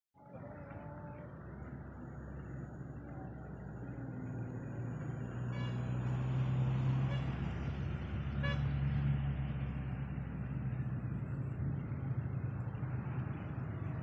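A motor engine running with a steady low hum, growing louder over the first several seconds and then holding, over outdoor background noise.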